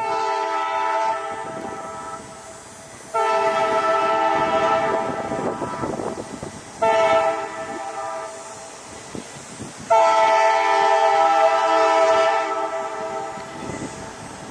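An EMD GP9 diesel locomotive's multi-tone air horn sounding four blasts: short, long, short, long. The locomotive's engine and the train's rolling noise rumble underneath between the blasts.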